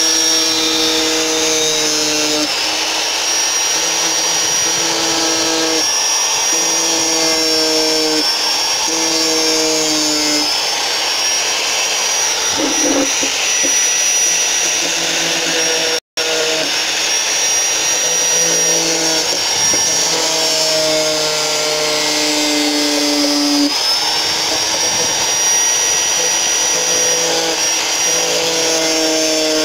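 Angle grinder with a sanding disc running and sanding a wooden board: a steady high motor whine over a dense grinding noise, with a lower hum that comes and goes every couple of seconds.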